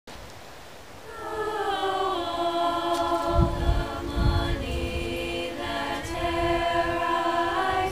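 A small group of women's voices singing a cappella in harmony, holding long notes that change in steps, starting about a second in. Two brief low rumbles come through near the middle.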